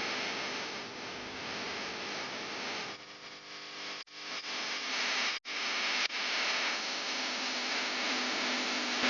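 Steady rushing of flowing spring water, an even hiss, cutting out briefly twice near the middle.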